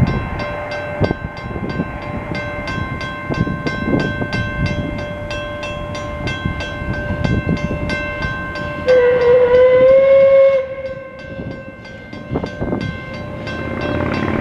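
Level crossing warning bells ringing in rapid, steady strikes. About nine seconds in, a narrow-gauge steam locomotive whistle gives one loud blast of nearly two seconds, rising slightly in pitch as it starts.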